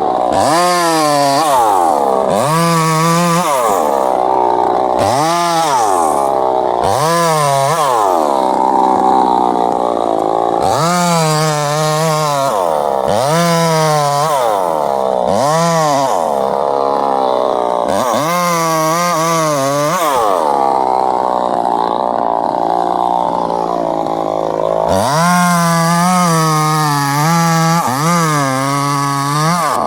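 Chainsaw engine revving up and dropping back over and over, about every one and a half to two seconds, with a few longer stretches held at high speed.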